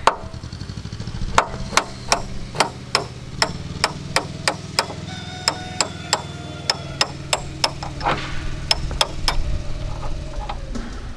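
A hammer tapping repeatedly on a metal Jeep door hinge pin, about two to three sharp ringing taps a second, stopping a little before the end. A steady low hum runs underneath.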